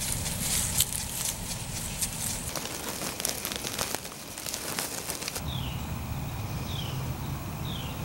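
Kiko goats moving through dry grass and fallen leaves: crackling and rustling with many sharp clicks. About five seconds in, this gives way to a bird repeating a short falling chirp about once a second over a low steady rumble.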